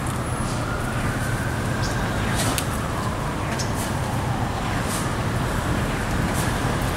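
Steady rain-storm ambience: a continuous hiss of rain with a low, unbroken rumble underneath and scattered ticks of drops.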